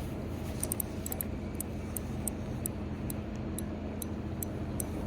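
A steady low engine hum, with faint light ticks scattered through it.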